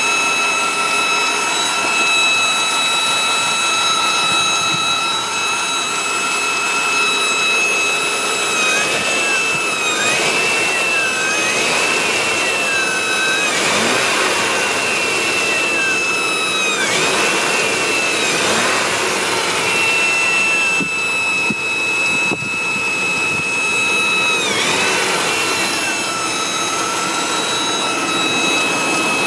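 A 1997 Chevy 5.7 Vortec small-block V8 running with a loud, high-pitched whine coming from the top middle of the engine. The tone mostly holds one pitch, then wavers and swoops up and down for several seconds about a third of the way in and again briefly near the end. The noise only appears once the engine has warmed up, and its cause is unknown.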